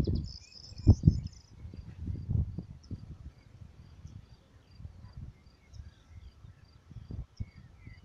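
An insect chirping steadily, about three short high chirps a second, with faint birdsong, over uneven low rumbles of wind on the microphone that are loudest near the start and about a second in.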